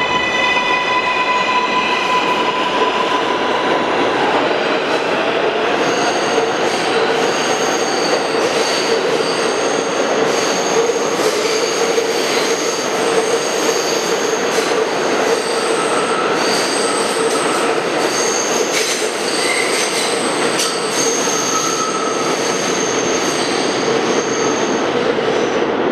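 New York City Subway R188 train pulling out of an underground station. A motor whine is heard for the first few seconds, then the cars run past with a steady rumble, clicks over the rail joints and repeated high-pitched wheel squeal.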